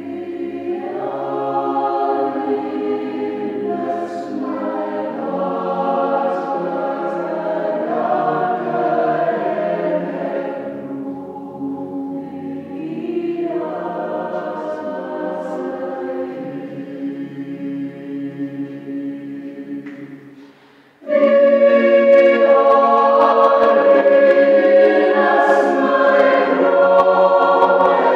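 Mixed youth choir singing a choral piece in several parts. The singing is softer through the middle and almost fades out, then the full choir comes back much louder about three-quarters of the way through.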